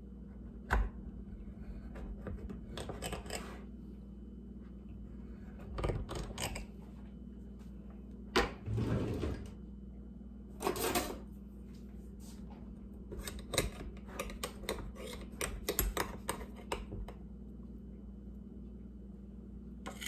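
Kitchen utensils handled against a pie plate and a countertop: a knife clicking and scraping as it cuts through the pie, a few knocks and short scrapes, then a quick run of light clicks and clatters.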